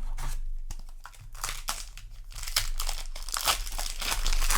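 Crinkling and crackling of a foil booster-pack wrapper being handled, in irregular bursts that get louder and busier about a second and a half in.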